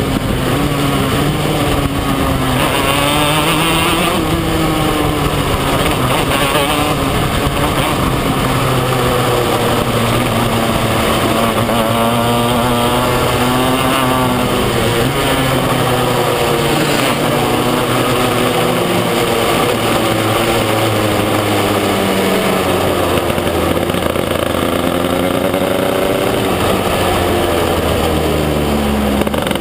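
Racing kart engine heard from on board the kart, running hard throughout. Its pitch rises and falls again and again as it revs up and drops off through the laps.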